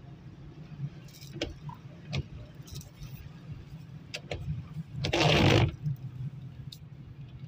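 Car driving on a wet, waterlogged road, heard from inside the cabin: a steady low engine and road hum with scattered light clicks and rattles. A brief loud rush of noise comes a little after five seconds in.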